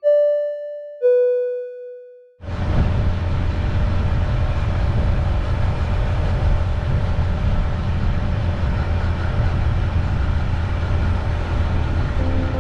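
A descending two-note chime, each note ringing and fading out. From about two and a half seconds in, steady driving noise from a dashcam follows: low vehicle rumble with road hiss.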